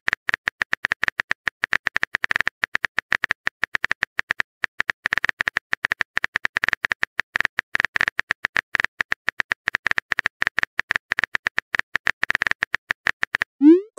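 Keyboard typing sound effect of a texting-story app: a long run of rapid, uneven clicks as a chat message is typed out.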